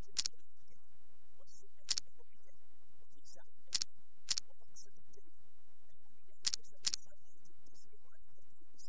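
Six short, sharp click sound effects of an animated graphic, each marking a text label popping on, spaced unevenly with two close together near the end, over a low steady hum.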